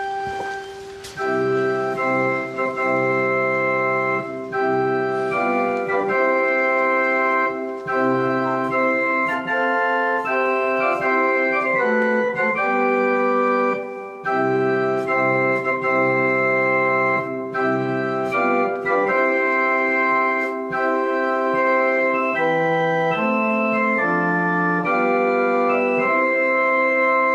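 Organ playing a slow wedding processional in held, changing chords, marking the bride's entrance.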